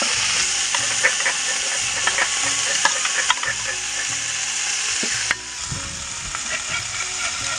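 Small whole fish sizzling in hot oil on a flat iron tawa while a metal spatula scrapes and turns them, with scattered clicks of the spatula against the pan. The sizzle drops suddenly to a lower level a little after five seconds in.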